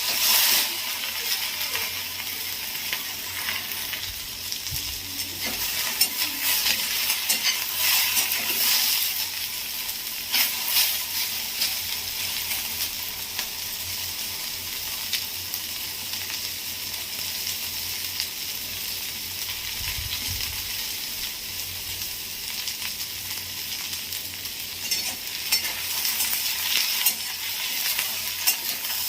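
Thinly sliced okra sizzling steadily as it fries in hot oil in a kadai, with the spatula scraping the pan now and then as it is stirred, more often in the first third and near the end.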